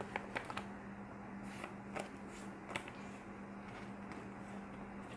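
Faint crinkles and rustles of a square of thin coloured paper being folded and creased by hand, in scattered short crackles, several in the first second and a few more around two to three seconds in, over a steady low hum.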